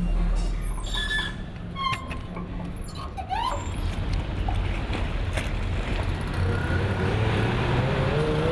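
Road traffic noise: a steady low rumble and hiss of city traffic, growing louder after about three and a half seconds.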